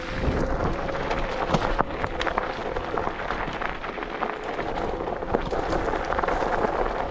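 Electric scooter being ridden: a steady whine under a constant rush of wind and tyre noise, with frequent small clicks and rattles.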